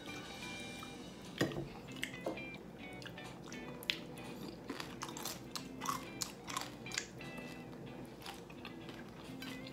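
Chewing and biting into crispy pata, deep-fried pork leg, with scattered sharp crunches of the crackling, the loudest about a second and a half in and near four seconds. Background music plays underneath.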